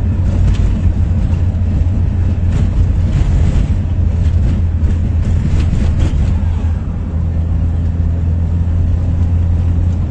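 Motor vehicle running at a steady pace: a steady low engine drone with road and wind noise.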